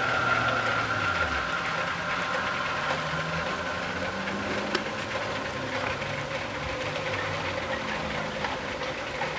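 Steady engine hum with a low drone that drifts slowly in pitch, and a few faint clicks.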